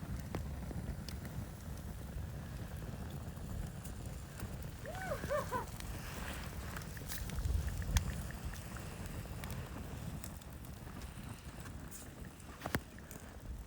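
Wind buffeting the microphone as a steady low rumble, with a short squeaky call about five seconds in and a couple of sharp clicks later on.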